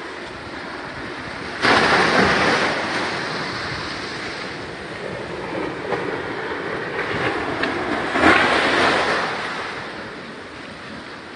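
Ocean surf breaking and washing up the sand against a stone-block seawall. A wave crashes in suddenly about a second and a half in and its rush slowly fades, and a second surge comes about eight seconds in.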